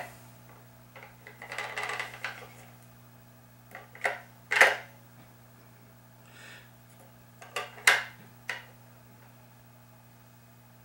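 Handling of a plastic RC transmitter: a short rustle about two seconds in, then a couple of sharp plastic clicks near the middle and a few more about eight seconds in. A steady low electrical hum sits underneath.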